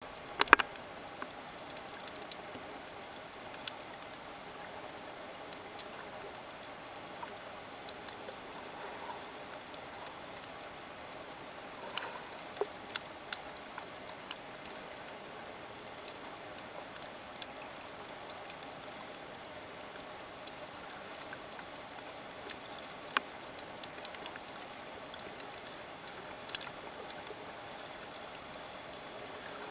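Underwater ambience over a shallow coral reef: a steady hiss with sharp clicks scattered irregularly throughout, the loudest a quick cluster of clicks just after the start.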